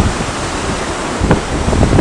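Surf breaking and churning on the rocks below, with wind buffeting the microphone in low rumbling gusts.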